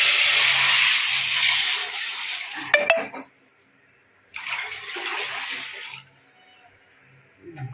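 Tomato rasam being poured from a vessel into a pan of hot tempering, a loud splashing hiss for about two and a half seconds. A couple of sharp knocks of the vessel follow, then a second, shorter pour about four and a half seconds in.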